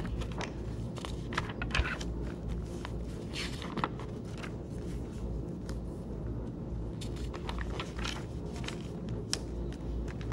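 Pages of a large picture book being opened, turned and smoothed flat on a table: irregular paper rustles, scrapes and light taps over a steady low hum.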